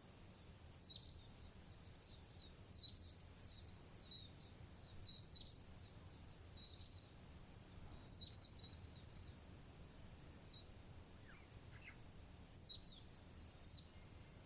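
Small songbirds chirping faintly: quick runs of short, high, down-slurred chirps, busy at first and sparser in the second half, with a few lower chirps late on, over a faint steady low rumble.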